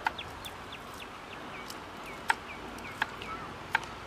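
A kitchen knife chopping garlic cloves on a wooden board: four sharp knocks of the blade on the wood, spaced unevenly. Behind it a bird gives a quick run of short, falling chirps, several a second.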